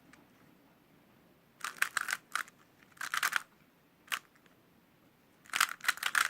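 YJ Guanlong Plus 3x3 speed cube being turned by hand: quick runs of plastic clacking as the layers turn, in four groups with short pauses between, the last and longest near the end.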